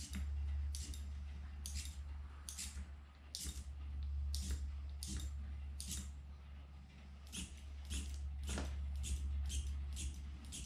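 SRAM Eagle XX1 AXS electric rear derailleur being test-shifted on the bench from its wireless shifter: a short whirr-click from the derailleur's motor with each press, about one a second at first and quicker near the end. A low steady hum runs underneath.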